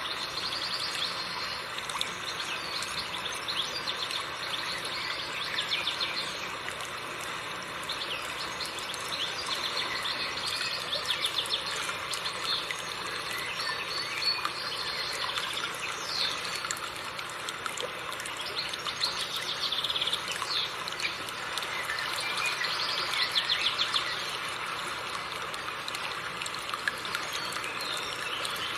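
River water running over rocks, a steady rush, with small birds chirping and trilling over it throughout.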